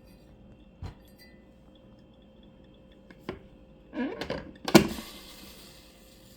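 A few handling knocks and clicks: a single knock about a second in, a click, then a short clatter and a loud thump near the end, followed by a brief fading hiss.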